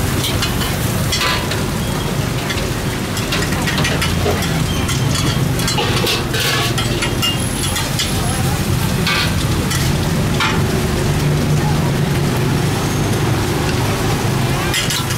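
Cabbage and leafy greens stir-frying in a wok: a steady sizzle, with the metal spatula clanking and scraping against the wok a few times, over a steady low rumble.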